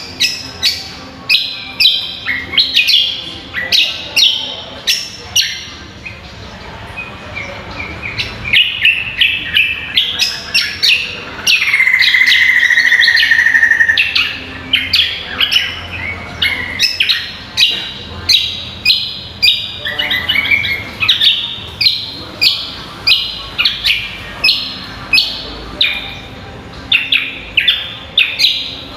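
Cucak kombo leafbird song: sharp, high chirps repeated about twice a second, with a long, loud whistled note that falls slightly in pitch about halfway through.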